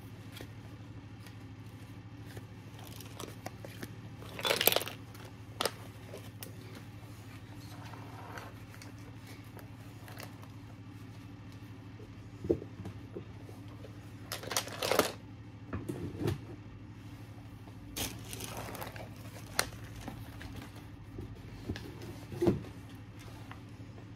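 Paper activity books and plastic craft supplies being handled and sorted: scattered rustles, page flicks and light knocks, the loudest about a third and two thirds of the way through, over a steady low hum.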